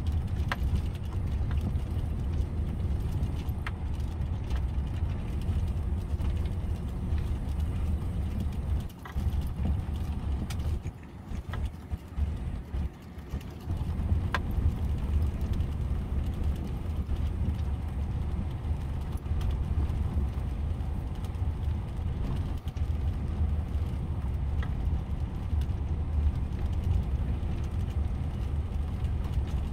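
A vehicle driving along a lane: steady low rumble of engine and tyres on the road surface, easing for a few seconds about nine seconds in, with a few light clicks or knocks here and there.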